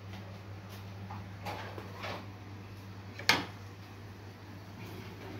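A metal spoon knocking and scraping against a small metal frying pan while falafel are turned in oil, with a few light knocks and one sharp clink about three seconds in, over a steady low hum.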